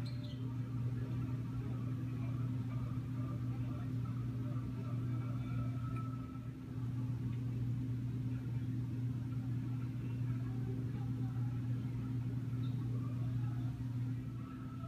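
A steady low hum, like a fan or motor, with faint indistinct background sounds above it; the hum dips briefly about six and a half seconds in.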